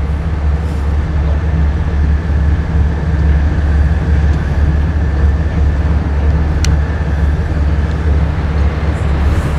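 Steady deep drone of a tugboat's diesel engine running, heard from on board.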